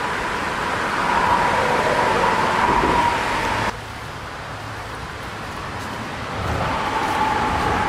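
Steady road traffic noise from the highway bridge over the river: a constant rush with a high tyre whine. It drops suddenly a little under halfway through, then swells again near the end.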